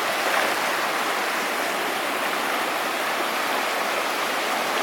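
A mountain river rushing over rocks, a steady, loud rush of water.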